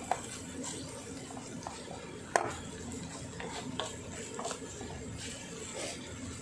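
Wooden spatula stirring and scraping chopped tomatoes and onions around a kadai, with scattered light knocks against the pan and one sharper knock a little over two seconds in.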